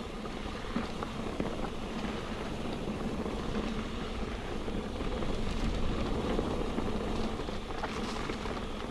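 Mountain bike descending a soft, loamy dirt trail: tyres rolling and sliding on the loose dirt, with small knocks and rattles from the bike and wind rushing over the microphone. The noise swells a little about halfway through.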